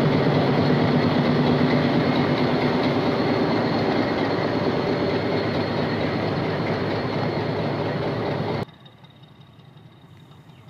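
Diesel locomotive engine idling, a loud steady hum, cut off abruptly about eight and a half seconds in and followed by faint background.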